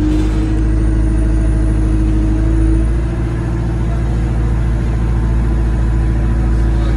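Single-deck bus engine and drivetrain heard from inside the passenger cabin: a steady, loud low drone with a faint high whine. The engine note climbs slightly over the first three seconds as the bus gets under way, then holds steady.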